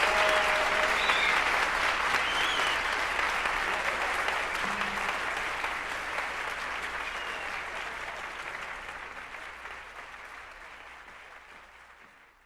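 Concert audience applauding after a song, with a few high calls in the first few seconds, fading out steadily to silence as the recording fades.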